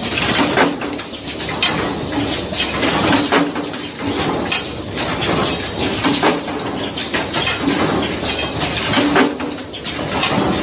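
Automatic steel-strip bending machine for spider skimmers, with its punch press and air cylinders, running its cycle: repeated metallic clanks and knocks a second or so apart, over a pitched machine hum that comes and goes.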